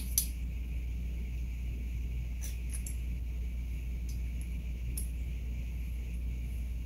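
A few light, sharp clicks and taps from bike brake-shifter parts being handled and fitted on the handlebar, the loudest just after the start and smaller ones spread through the middle, over a steady low hum.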